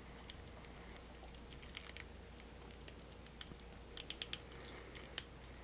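Light plastic clicks and taps from a 6-inch Hasbro Black Series action figure being handled and posed, its joints and parts moving; a quick run of four clicks comes about four seconds in.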